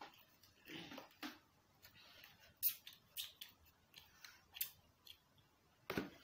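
Scattered short crackles and clicks of fast-food packaging being handled: paper wrappers and a cardboard chicken bucket, with a louder knock just before the end.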